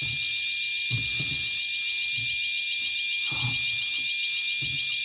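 A building fire alarm sounding continuously as a steady high ringing with a constant tone in it. It is in alarm because a sprinkler zone has been tripped during a sprinkler test.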